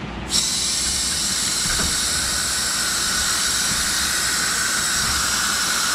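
A steady hiss that comes in suddenly just after the start and holds at an even level.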